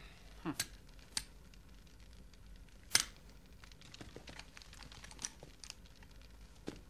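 Quiet battlefield ambience: scattered sharp clicks and crackles over a low steady hum, the loudest click about three seconds in.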